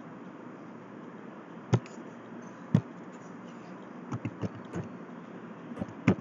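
Two sharp computer mouse clicks about a second apart, then a string of lighter keyboard keystrokes as a password is typed, over a steady background hiss.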